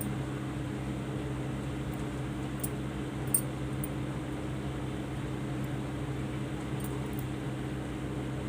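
Steady low machine hum over an even hiss, with one short click about three and a half seconds in.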